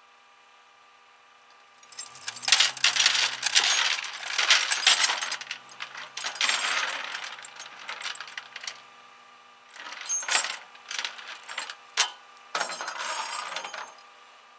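Tow chain and hooks rattling and clanking against the steel deck of a flatbed tow truck, in four bursts of metallic clatter.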